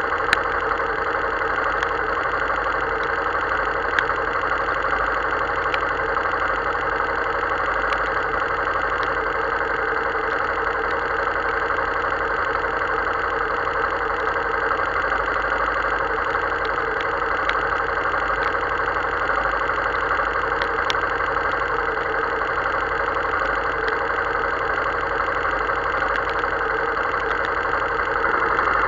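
Motorcycle engine idling steadily, with a few light ticks scattered through it; it gets a little louder near the end.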